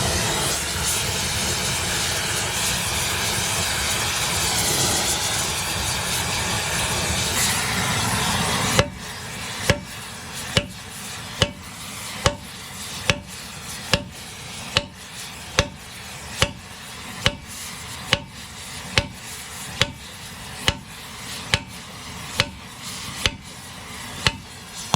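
A gas heating torch running with a steady roar for about nine seconds. It stops abruptly, followed by a steady run of about eighteen hammer blows on a steel pivot pin, one a little under every second, each a sharp metallic strike with a brief ring, as the seized pin is driven out.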